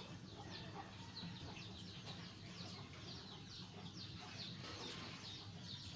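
Birds chirping in many short, quick, falling notes, faint, over a steady low hum.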